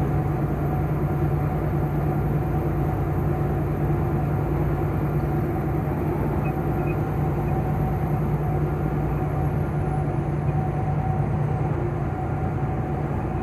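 Semi truck's diesel engine and tyres droning steadily inside the cab at highway cruising speed, about 65 mph, with the speed held constant on cruise control.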